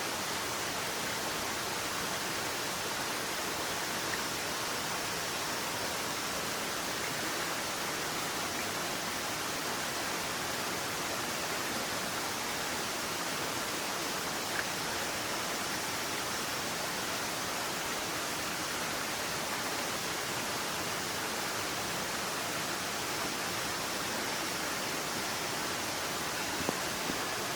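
Heavy rain falling steadily, an even hiss, with a faint tick or two.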